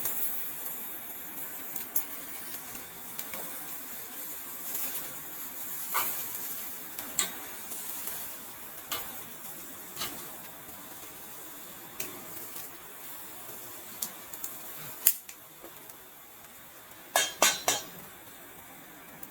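Metal cutlery and dishes clinking, single sharp clinks every few seconds and then a quick run of louder clinks near the end, over a steady faint hiss.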